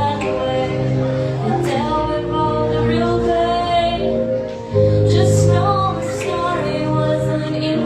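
Live pop music: a woman singing over sustained chords and a steady bass.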